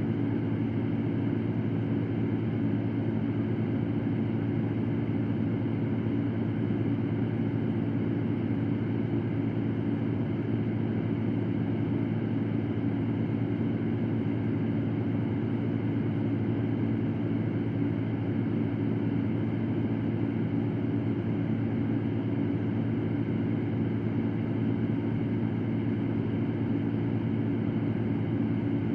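Electric fan running steadily: a constant rushing noise with a low hum underneath, unchanging throughout.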